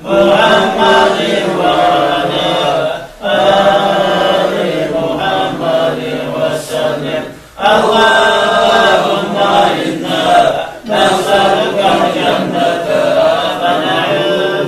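Male voices chanting an Arabic devotional supplication, a salawat blessing on the Prophet, in long drawn-out melodic phrases broken by short breaths about three times.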